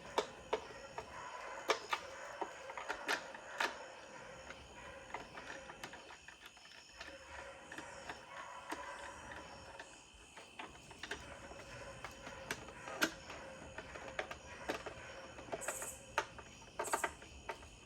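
Scattered sharp clicks and knocks of hard plastic being handled and pressed into place as a kayak side panel is fitted.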